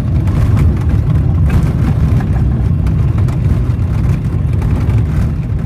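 Light aircraft's engine and spinning propeller running steadily, heard from inside the cockpit as a heavy low rumble with irregular knocks as the plane rolls along a grass strip.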